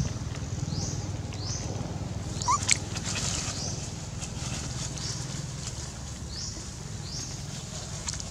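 Forest ambience: a high, rising chirp repeats about once a second over a steady low rumble. About two and a half seconds in comes a short rising squeak from one of the young long-tailed macaques, with a couple of clicks.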